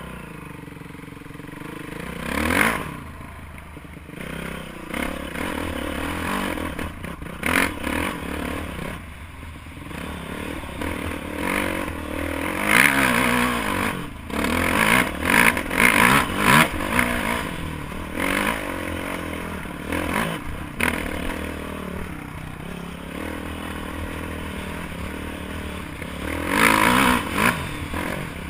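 Dirt bike engine revving, its pitch rising and falling as the throttle opens and closes. Loud rough bursts of noise break in now and then: about two seconds in, a cluster midway, and again near the end.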